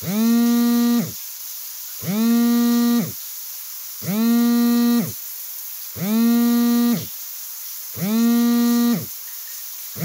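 Smartphone vibrating on a hard tabletop for an incoming call: a low buzz of about a second, repeated every two seconds, five times, each buzz gliding briefly up as it starts and down as it stops.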